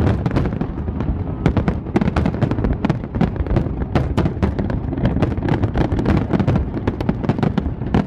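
Aerial fireworks bursting in a dense, continuous barrage: rapid overlapping bangs and crackle, several a second, over a steady low rumble.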